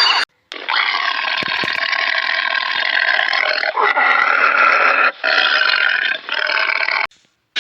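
An animal calling in long, drawn-out stretches, with brief breaks between them.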